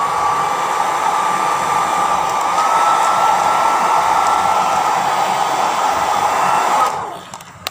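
Electric blow dryer running steadily, blowing a wet dog's fur dry after its bath. Its whine steps up slightly about two and a half seconds in, and the dryer cuts off near the end.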